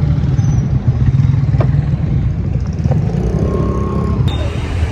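Motor vehicle engine running close by, a steady low rumble.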